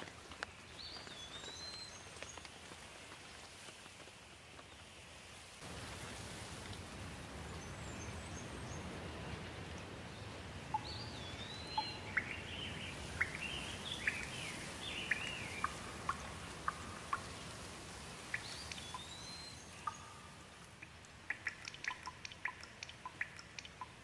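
Steady rainfall hiss that grows louder and fuller about six seconds in and eases again near the end. A bird gives a short rising-then-falling call three times, with a flurry of chirps in the middle, and a quick run of sharp ticks comes in near the end.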